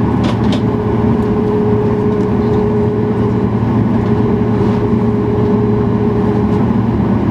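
Steady hum of a Boeing 737-800 cabin on the ground, with a steady whine held in it that stops near the end.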